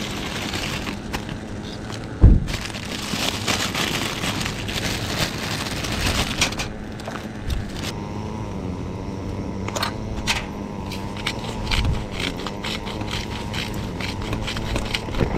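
Hand grinder crunching rock salt: dense crackling, then many separate small clicks in the second half. A single sharp knock about two seconds in.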